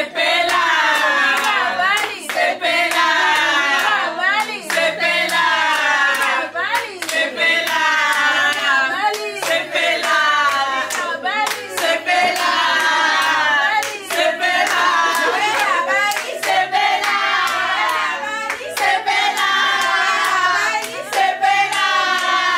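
A group of women singing together with hand clapping, a low bass line running underneath.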